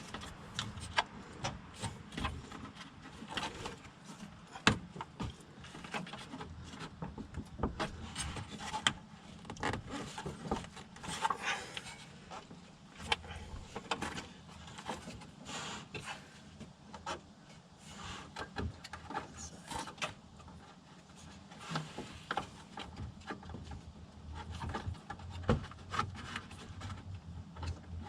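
Radiator and cooling parts being handled and fitted into a car's front end: irregular clicks, knocks and rubbing, with a longer scrape about eleven seconds in.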